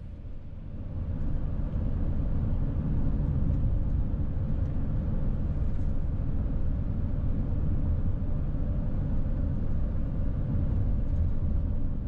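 Steady road and engine noise of a vehicle cruising on a highway, heard from inside the cab: a low rumble with a faint steady hum, swelling over the first second or two and then holding level.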